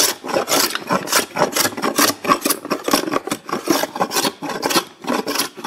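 Steel hand scraper rasping across the hardwood face of a glued-up cutting board in quick back-and-forth strokes, about three or four a second. It is taking off wood and leftover glue to level and smooth the strips.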